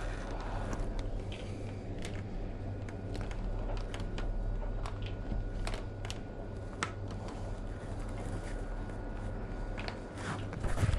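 Scattered light clicks and ticks of hands handling a plastic mudguard and stretching its rubber mounting bands around a suspension fork, over a steady low hum.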